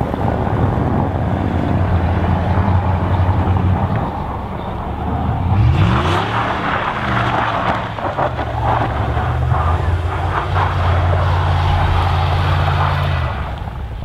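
Pickup truck engine revving hard as the truck slides and spins in deep snow. The note holds, sweeps up and back down about six seconds in, then holds again, over a steady rushing noise.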